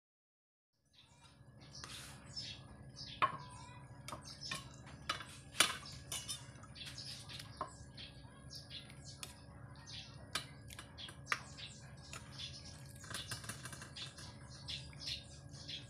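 Many short, rapid bird chirps over a steady low hum, with a few louder sharp clinks of a metal spoon against a ceramic bowl and plate.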